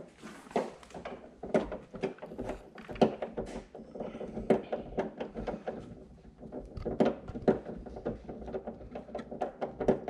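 Hand ratchet with a nut-driver socket clicking in short, irregular runs, with small knocks of the tool against the trunk lid, as it backs off the nuts holding the rear spoiler. The clicking is densest in the last few seconds.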